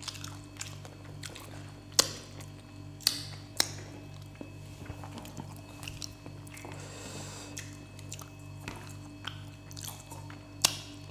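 Close-miked eating sounds from people eating rice by hand: chewing with several sharp lip smacks, over faint background music.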